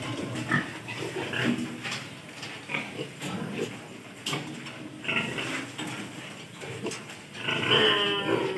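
Piglets grunting in short calls at intervals, with a louder, longer squeal near the end.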